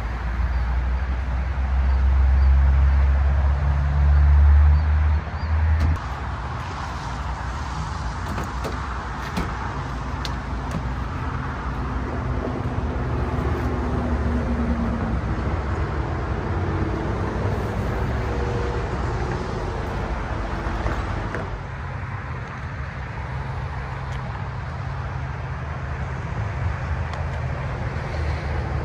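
Steady traffic noise from a busy highway. A louder deep rumble in the first six seconds stops abruptly.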